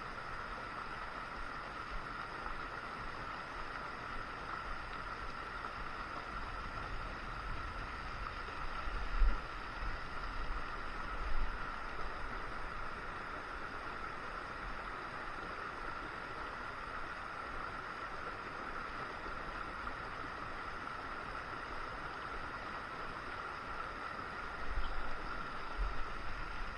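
Shallow creek water running over rocks in a riffle: a steady rushing, with a few brief low thumps on the microphone.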